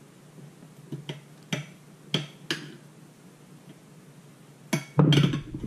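A spoon clicking and scraping against a plate while a sriracha-mayo coating is spread over a raw fish fillet: about five separate sharp clicks. Near the end a loud, low rumbling noise starts.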